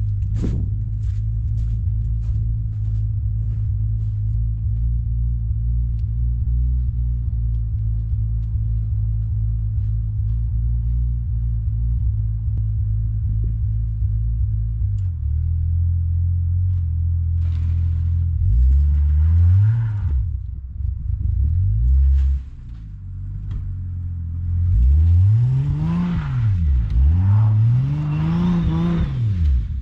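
Car engine idling steadily, then revved several times in the second half, each rev rising and falling in pitch.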